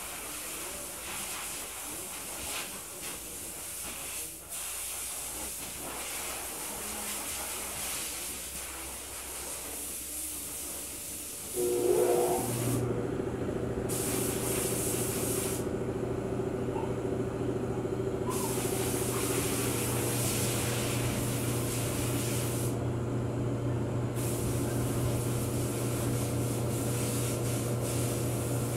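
A steady hiss, then about twelve seconds in a machine starts up with a steady, low, multi-toned hum that keeps running.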